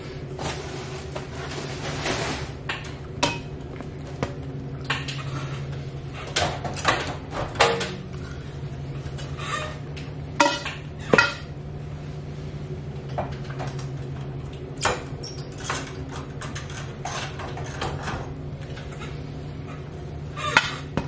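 Scattered metallic clinks, clicks and knocks, as of tools or metal parts being handled, with several louder knocks around the middle. A steady low hum runs underneath throughout.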